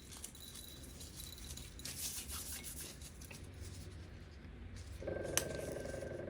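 Dried red Kashmiri chillies being rubbed and broken open by hand, their papery skins crackling and the loose seeds rattling out. About five seconds in a click is followed by a steady hum that carries on.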